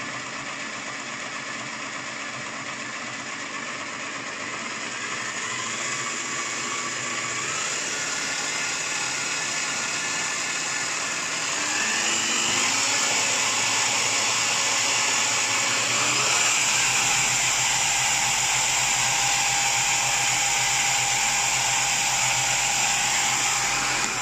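Parkside PTBM 710 A1 benchtop drill press running in second gear as its speed is turned up in steps, so the motor and spindle whine climbs in pitch and grows louder. From about two-thirds of the way in, a low hum joins it as the machine, running near 2600 rpm, starts to vibrate and wobble on the bench. Near the end the pitch begins to fall as it slows.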